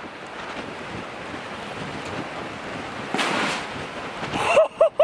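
Wind buffeting the microphone, with a single shotgun shot about three seconds in, heard as a short burst not far above the wind. The shotgun's muzzle is plugged with mud, and the shot bursts the end of the barrel and blows off the choke. A short exclamation follows near the end.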